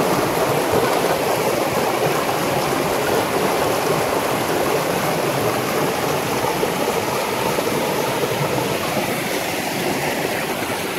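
A mountain stream rushing in a steady, even flow over bedrock slabs and small whitewater cascades.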